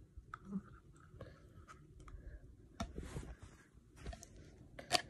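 Small plastic spoon clicking and scraping against plastic tubs while scooping thick blue hair product, with scattered sharp clicks, a short scrape about three seconds in and a louder knock near the end.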